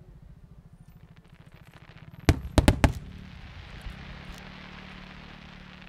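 Aerial fireworks bursting: a sharp bang about two seconds in, then three quick bangs, followed by a lingering crackling hiss.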